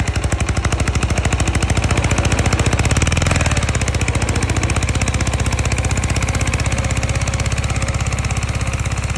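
Mini tractor's engine running under load in a fast, even pulsing beat as it tows a trailer heavily loaded with sacks.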